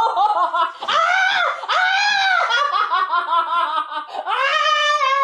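A man's shrill, high-pitched cries in a string of rising-and-falling calls, laugh-like in places, from the subject of an exorcism who is said to be possessed by a dog spirit.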